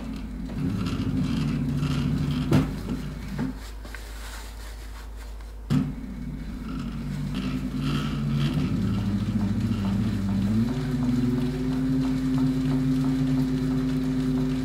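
Techsew 2750 Pro cylinder-arm industrial sewing machine (a Juki 341 clone) stitching a patch onto a fabric hat, its motor and needle running in spells that speed up and slow down. There is a sharp click about two and a half seconds in and another near six seconds, and a quieter lull between them.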